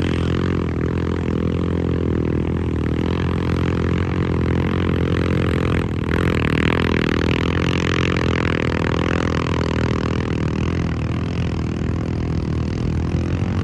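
ATV engines running at high, steady revs during a mud race, with a brief dip about six seconds in.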